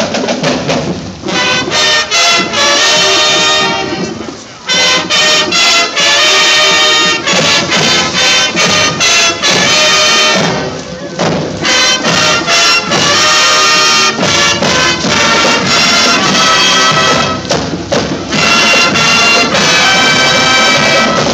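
High school marching band playing: drums alone at first, then the brass comes in about two seconds in, playing a tune with short breaks between phrases.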